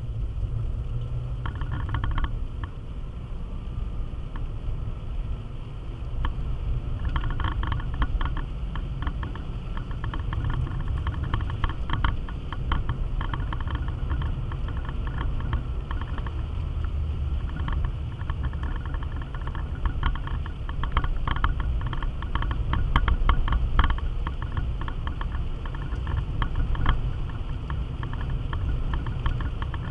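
Car driving on a wet road, heard inside the cabin: a steady low rumble of engine and tyres, with runs of light rattling clicks through much of it.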